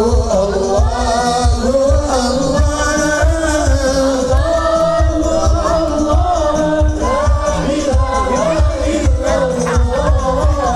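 Islamic devotional singing (sholawat) over a loud sound system: a group of voices chanting a melody to a steady drum beat.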